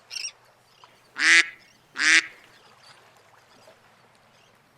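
Duck quacking twice, two short loud quacks about a second apart, used as a sound effect.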